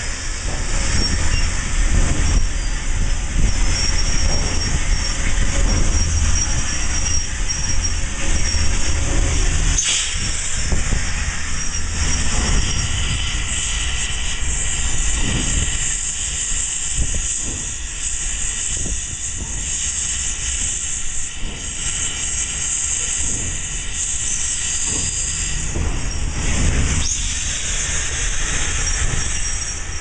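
Cab sounds of Santa Fe 3751, a 4-8-4 steam locomotive, on the move: a steady hiss of steam over the low rumble of running gear and wheels on rail. A faint high wheel squeal comes and goes, and there is a brief louder burst about ten seconds in and another near the end.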